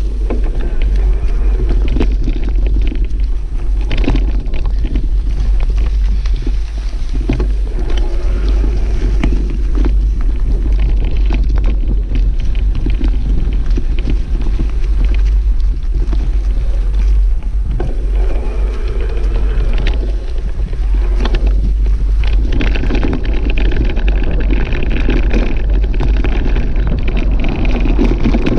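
Steady wind buffeting on the microphone of a bike riding an off-road trail, with repeated knocks and rattles from the rough ground.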